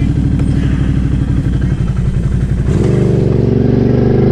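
2017 Can-Am Outlander XMR 1000 ATV's V-twin engine, fitted with a Big Gun exhaust, running at low revs with an even throb. About three seconds in, it revs up and holds higher.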